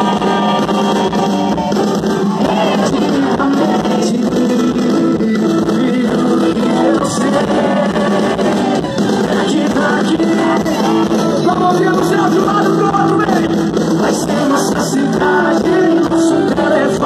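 Live band music with singing, played loud through a concert sound system and picked up by a phone out in the crowd.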